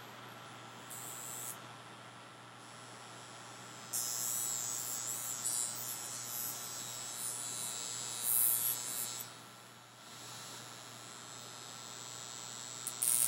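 Violet wand, a high-frequency electrostimulation device with a glowing glass electrode, running with a steady electrical hum and buzz. A high hiss joins it about four seconds in, drops out a little after nine seconds and comes back.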